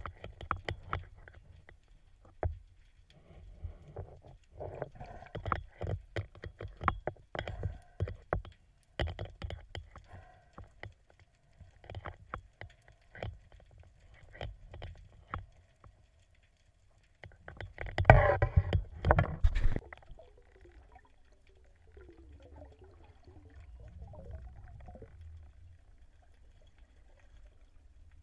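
Underwater sound while spearfishing: scattered clicks and knocks with the wash of water against the camera. A louder rush of water or bubbles comes about 18 seconds in and lasts about two seconds.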